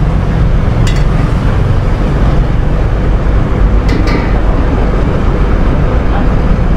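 A steady low rumble of outdoor background noise, with two short clinks of a serving utensil against a metal pot or bowl, about one second and four seconds in.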